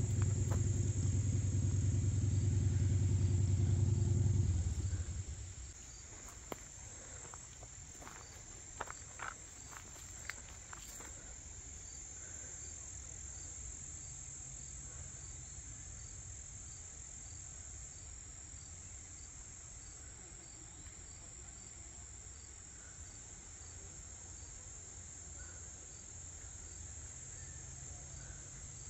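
Insects trilling steadily at a high pitch without a break, with a low rumble for the first few seconds and a few faint clicks after it.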